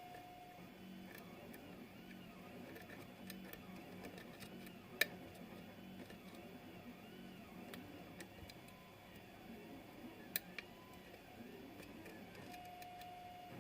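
Lock pick and tension wrench working the pins of a pin-tumbler lock: faint light scraping, with a few sharp clicks. The loudest click comes about five seconds in, and two more come close together near the end.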